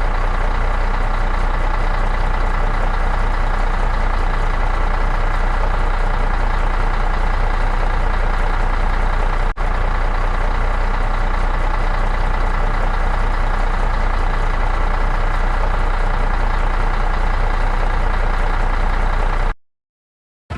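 Heavy construction machine's diesel engine running steadily, with a deep low hum. It breaks off for an instant about halfway through and stops abruptly a second before the end.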